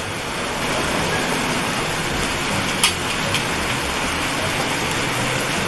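Thin banana-ketchup sweet and sour sauce sizzling and bubbling in an aluminium wok, a steady hiss. A single sharp click a little under three seconds in.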